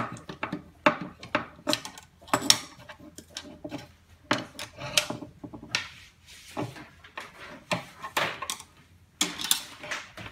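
Irregular clicks and light knocks of a hex screwdriver and hands against the metal frame and Z-axis block of a Wanhao Duplicator 6 3D printer as its lower locking screws are loosened.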